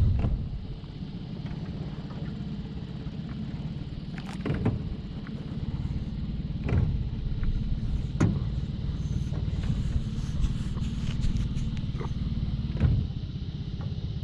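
Boat motor idling steadily, with a few sharp knocks while a long shrimping pole is jabbed down into the creek bottom from the boat.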